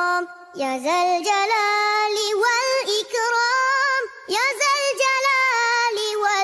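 A high solo voice singing a slow Islamic devotional chant (zikir), holding long notes that slide between pitches. It breaks briefly for breath about half a second in and again about four seconds in.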